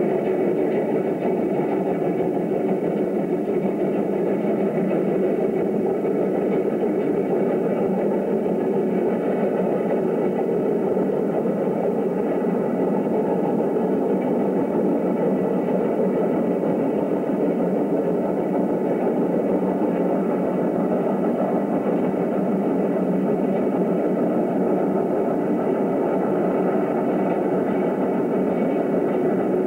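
Steady mechanical whirring noise at an even level throughout, with no chuffing beats or separate events.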